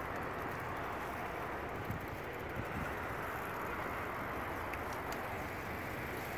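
Steady outdoor background rush with no distinct events, of the kind made by city traffic and a flowing river heard together.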